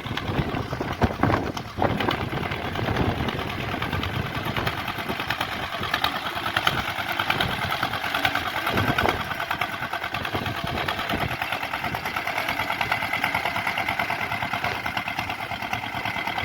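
Small tractor engine running steadily with a fast, even clatter.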